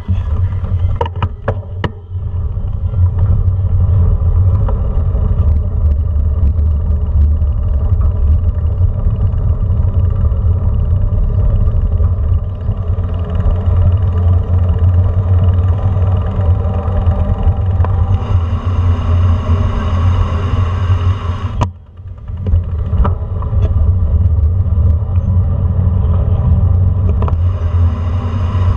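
Steady low rumble of wind buffeting a bicycle-mounted action camera's microphone, mixed with tyres rolling over brick pavers as the bike rides along. A few sharp knocks come in the first two seconds, and the rumble drops out briefly about two-thirds of the way through.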